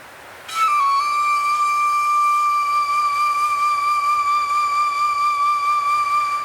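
A flute enters about half a second in with a short drop in pitch, then holds one long note with a slight waver, over a soft wind-like hiss.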